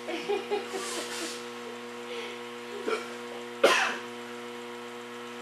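A person coughs once, sharply, about two-thirds of the way through, after a smaller throat-clearing sound, over a steady hum. Low voices are heard briefly at the start.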